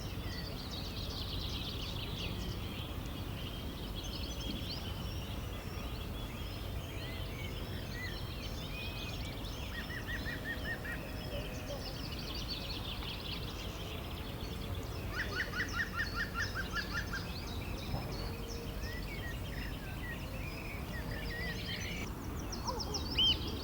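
River water flowing with a steady low rush, and several birds singing and chirping over it; twice a bird gives a quick trill of rapidly repeated notes.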